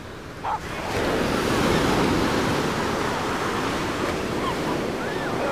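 Ocean surf breaking and washing up a sandy beach: a steady rushing that swells in about a second in, with some wind on the microphone.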